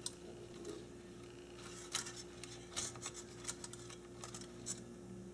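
Faint, scattered light clicks and ticks as hands move the wires on a rotary phone dial's brass contact springs, over a steady low hum.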